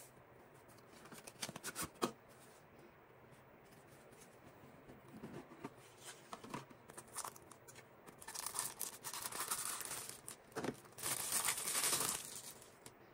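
Hand-unboxing noises: a cardboard gift box handled, with a few sharp taps and scrapes early on. Then a clear plastic bag crinkles in two long stretches, the loudest near the end.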